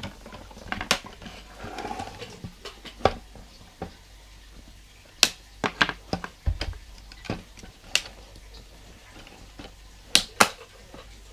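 Transformers Rescue Bots Heatwave plastic toy being twisted and transformed by hand: irregular clicks and knocks of hard plastic parts snapping into place and bumping, with a sharp pair of clicks near the end.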